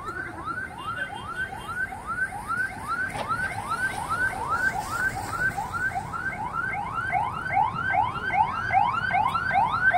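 Electronic alarm repeating a quick rising whoop, about three times a second, growing louder toward the end.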